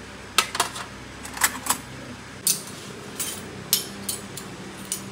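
Stainless-steel spoons and forks clinking against each other as they are sorted into a plastic cutlery tray: a series of sharp metallic clinks at irregular intervals.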